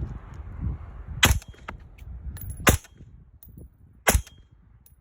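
Three suppressed rifle shots from a 10.3-inch-barrel 5.56 rifle fitted with an AAC M4-2000 suppressor, evenly paced about a second and a half apart, firing the first rounds of a six-round string.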